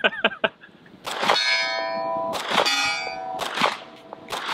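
Four shots from a Staccato C2 2011 pistol, about a second apart. Each shot is followed by a steel target ringing for a second or more, so each shot is a hit on steel.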